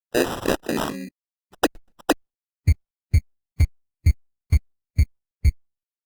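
Edited sound effects: a short noisy crash-like burst, a few light clicks, then seven short low thumps in an even beat, each dropping quickly in pitch.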